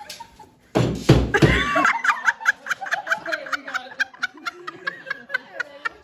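A group of people laughing in quick, repeated bursts, after a loud burst of noise about a second in.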